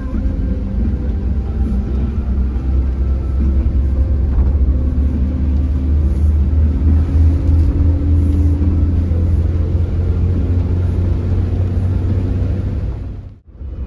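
Mercedes-Benz OH 1626 bus running on the road: a steady low diesel engine and road rumble, cut by a brief drop-out near the end.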